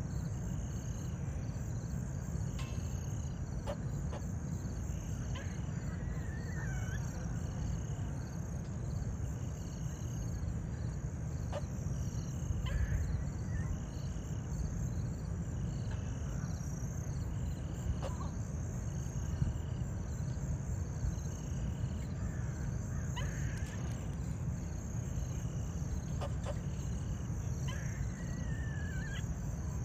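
Outdoor summer ambience: insects chirping in a steady repeating rhythm, with a few brief bird-like chirps every several seconds, over a steady low rumble.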